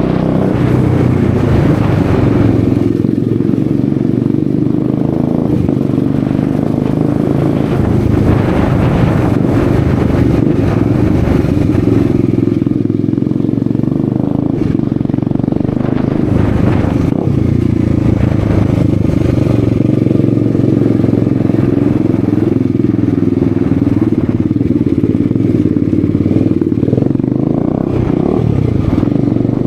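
Bajaj Dominar 250's single-cylinder engine running with its exhaust end can removed, so the exhaust is loud and unmuffled. It runs steadily, with the revs rising and falling several times.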